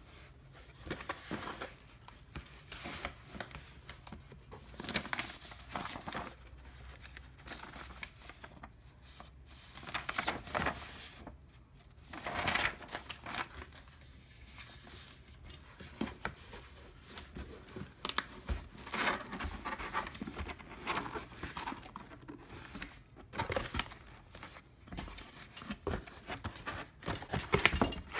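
Paper and cardboard packaging being handled: an instruction sheet rustling and a cardboard box insert sliding and scraping, in irregular bursts with scattered sharp clicks and knocks.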